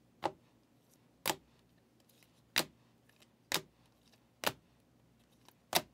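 Rigid plastic magnetic card holders clicking against one another as cased trading cards are handled and shuffled, six sharp clicks about a second apart.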